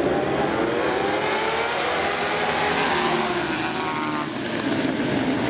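A pack of 1000 cc superbike racing motorcycles running past together, many engines revving at once, their notes rising and falling in pitch as the bikes go by. The sound eases briefly about four seconds in.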